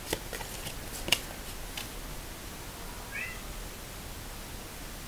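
Playing cards being handled and pulled from a hand: a few sharp clicks and snaps in the first two seconds, the loudest about a second in. A little after three seconds there is a short, faint, high call that rises and falls once.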